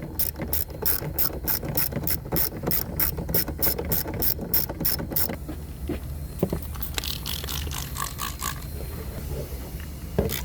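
Hand ratchet wrench clicking steadily, about three or four clicks a second, stopping about five seconds in; a single knock near the end.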